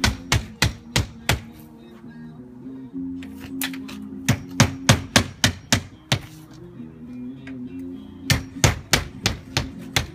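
Hand hammer driving nails through the nailing hem of vinyl siding into the wall: three runs of quick, sharp strikes, a few a second, the first at the start, the next from about three and a half seconds in, the last near the end. A radio plays music underneath.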